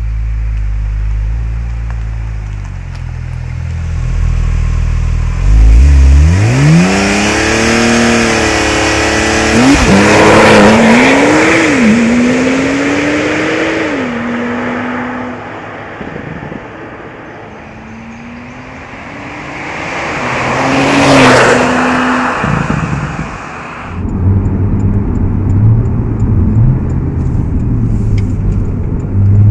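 Porsche 911 Turbo S's twin-turbocharged 3.8-litre flat-six accelerating hard, its pitch climbing steeply and then dropping back in a few quick upshifts of the seven-speed dual-clutch gearbox. Later the car approaches and passes at speed, the engine note swelling and then falling in pitch. It ends heard from inside the cabin, running steadily at a low pitch.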